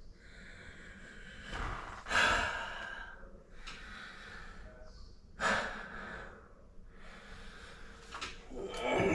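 A man's heavy breathing, close to the microphone, while he works down at floor level, with two louder breaths about two and five and a half seconds in.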